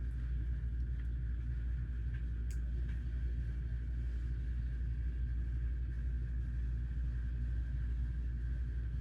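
Steady low hum of room noise, with a few faint clicks of plastic Lego bricks being handled in the first three seconds.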